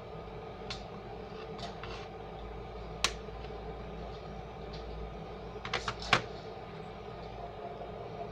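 A few short, sharp clicks and knocks over a steady low hum: one loud click about three seconds in and a quick cluster of three or four near six seconds.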